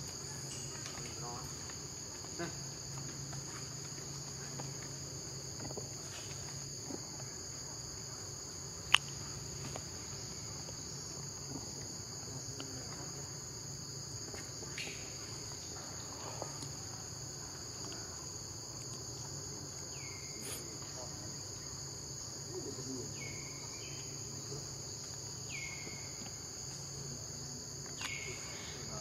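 Steady high-pitched drone of forest insects, running without a break. A single sharp click about nine seconds in, and a few short falling chirps in the last ten seconds.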